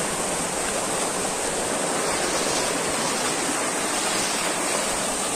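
Small waterfall pouring over rocks into a pool below, a loud, steady rush of falling water.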